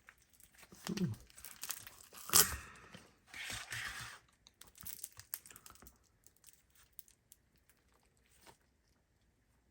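Stiff, over-activated foam slime packed with foam beads being squeezed and pulled apart in the hands: scattered crackling and tearing, with one sharper snap about two and a half seconds in. It goes nearly silent for the last three seconds or so.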